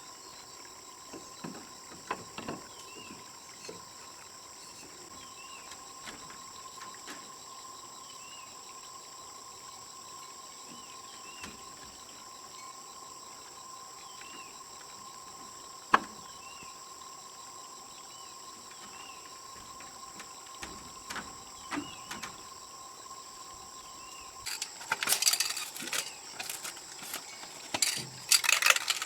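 Steady insect chirring with faint repeating chirps, broken by scattered small clicks and one sharp tap about halfway through. Near the end, louder bursts of scraping and rattling begin, like things being handled.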